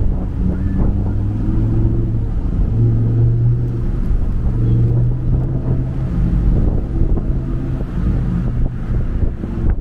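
A motor vehicle's engine running close by with a steady low hum that fades out near the end, under low wind rumble on the microphone.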